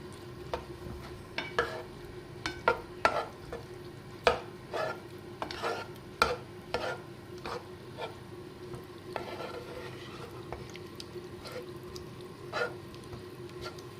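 Spoon stirring in a dish of cream and boiled celery, with irregular clinks and taps against the dish over a steady faint hum.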